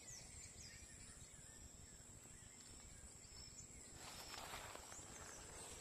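Near silence: faint outdoor ambience in a plantation, with a steady high thin tone, a few faint chirps, and a soft rustling starting about four seconds in.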